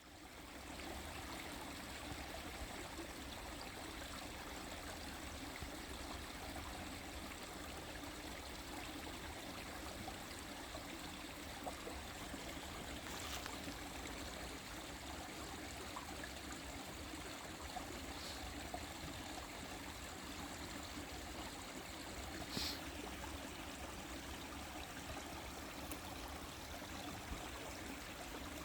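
A small stream flowing over stones, a steady even babble of water that fades in at the very start, with a few brief splashes or ticks standing out, the clearest about two-thirds of the way through.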